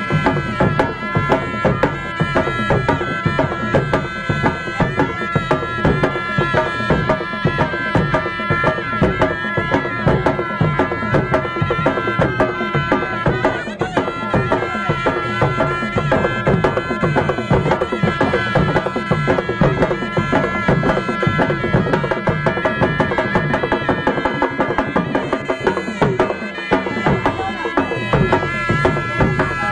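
Loud, fast traditional drumming played without a break, with a pitched instrument holding steady high notes over it.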